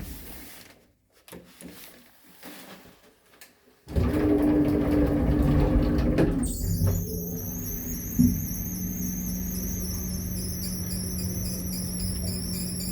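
Water-damaged lift: a click, then near quiet, then a loud start about four seconds in as the machinery gets going. From about six and a half seconds a high, wavering scratchy squeal sets in over a steady hum, with a single thump a little later.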